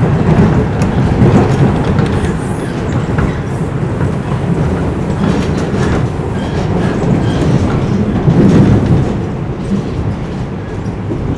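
TTC Toronto Rocket subway train running on the rails, heard from inside the car: a steady wheel-on-rail rumble with the clickety-clack of the track, a little quieter in the last couple of seconds.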